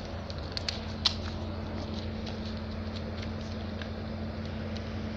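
A steady low hum, like a motor or fan running, with a few sharp clicks and ticks, the loudest about a second in.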